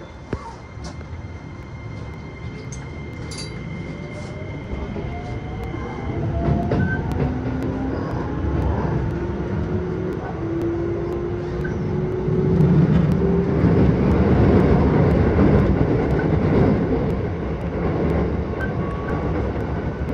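Keisei 3000 series electric train heard from inside the carriage as it pulls away and accelerates: the traction motors whine, rising steadily in pitch, over a growing rumble of wheels on rail.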